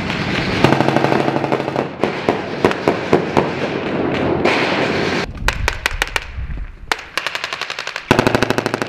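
Rifle fire in rapid automatic bursts mixed with single shots, with a long fast burst starting near the end. A steady rumble underneath drops away about five seconds in.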